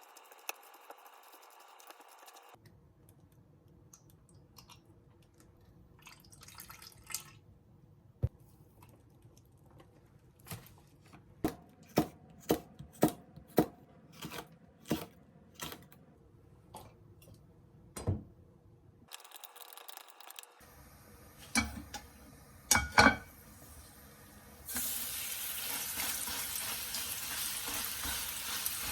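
Kitchen cooking sounds: a run of sharp knocks about two a second as food is prepared, a few louder clatters of utensils and dishes, then near the end a steady sizzle of food frying in a pan begins.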